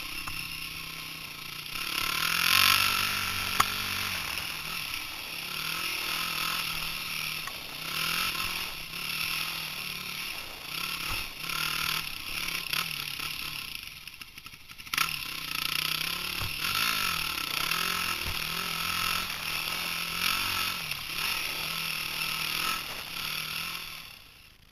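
Dirt bike engine being ridden hard, its pitch rising and falling over and over as the throttle opens and closes. A couple of sharp knocks come through, one a few seconds in and one about halfway. The sound cuts off near the end.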